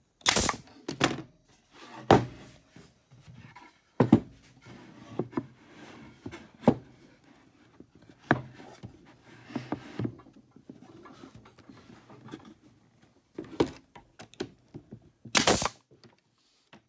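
Pneumatic brad nailer firing two sharp shots in the first second as it tacks a corner of a wooden bee hive box. This is followed by a series of wooden knocks and thuds as the pine box boards are set and pressed together by hand, and a louder sharp burst near the end.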